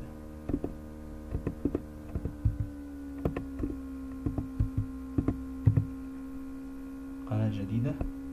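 Computer keyboard keys clicking irregularly as a short name is typed, partly deleted and retyped, over a steady electrical hum.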